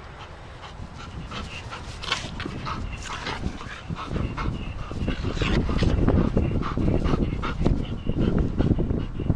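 Two dogs playing right at the microphone: many short, high dog cries in the first half, then a loud low rumble that builds from about four seconds in.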